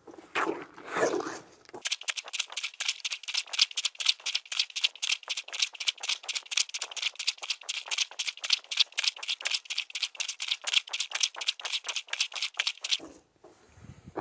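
A Breathing Mobile Washer, a hand-plunger laundry washer, pumped up and down in a bucket of soapy water and cloth diapers. It makes rapid, regular suction strokes at about five a second, starting about two seconds in and stopping about a second before the end.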